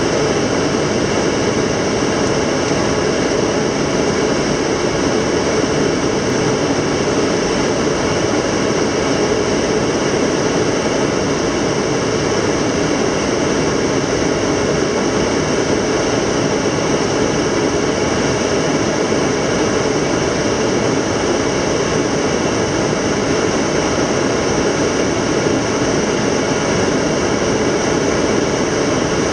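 Steady noise inside the cockpit of an Antonov An-124 Ruslan on approach: airflow and the drone of its four Progress D-18T turbofans, with faint steady whining tones over the noise and no change in level.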